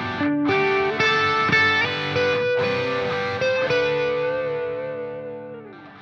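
Outro music: a distorted electric guitar playing held notes that fade out, the last note bending down in pitch near the end.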